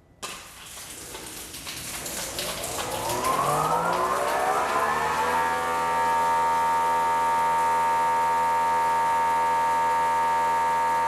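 Greenworks 2300 psi electric pressure washer starting up: a sudden hiss, then after a long delay the motor and pump rev up in a rising whine over a few seconds, settling into a loud steady hum. This slow ramp is the unit's start-up delay.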